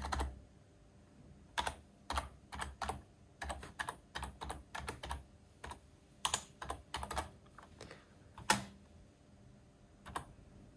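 Slow, irregular typing on a computer keyboard: single key presses and short runs of keystrokes separated by pauses, with one louder key press about three-quarters of the way through.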